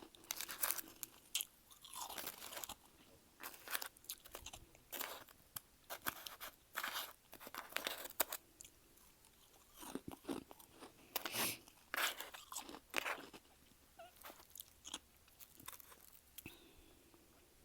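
Close-up crunching and chewing of powdery freezer frost: irregular crisp crunches, some several in quick succession, growing fewer and fainter in the last few seconds.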